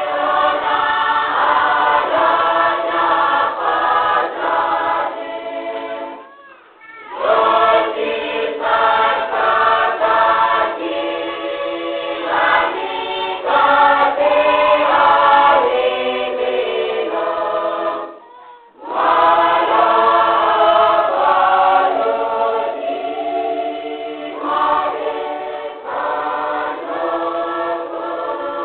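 Choir singing a hymn in the Isabel dialect, with two short breaks between phrases, about six and eighteen seconds in.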